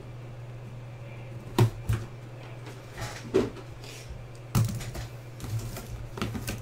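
Cardboard boxes and a marker handled on a tabletop: a pair of sharp knocks under two seconds in, then more knocks, taps and rustling in the second half, over a steady low hum.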